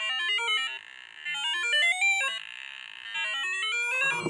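A BBC micro:bit's small loudspeaker, sounding through a plastic beaker, playing electronic bleeps whose pitch follows the magnetometer's reading of a fridge magnet's field: quick stepped notes sweeping upward, in three runs. A knock near the end.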